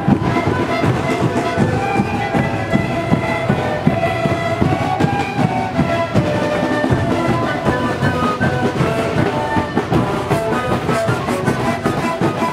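A group of sikus (Andean cane panpipes) playing a melody together, breathy held notes in several pitches, over a large bass drum beating steadily.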